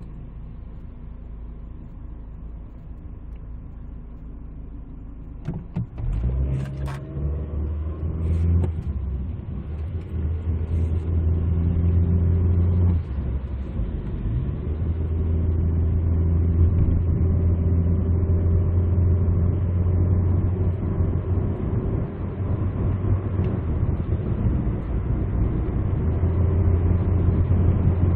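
Inside the cabin of a 2003 SM5 running on LPG, its intake and exhaust fitted with swirl devices. The engine idles quietly, then about six seconds in the car pulls away with the engine note rising. It settles into a steady engine and road drone while cruising. A few faint clicks come just as it moves off.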